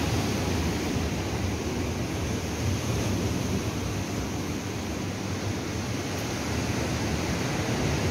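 Ocean surf breaking on the beach below, a steady rushing noise, with some wind on the microphone.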